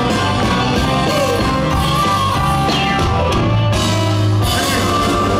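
Live Chicago blues band playing an instrumental passage: amplified electric guitar and drums, with a harmonica played cupped against a handheld microphone.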